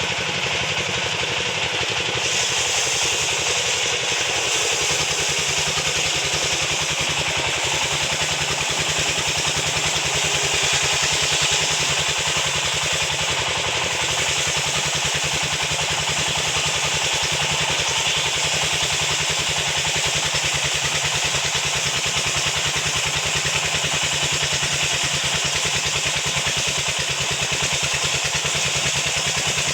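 Engine-driven sawmill machinery running steadily at a constant speed, with a dense, even rhythm.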